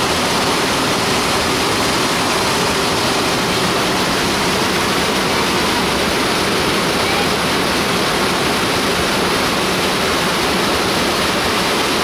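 Steady rush of whitewater from a river waterfall and its rapids, an unbroken hiss of falling and churning water.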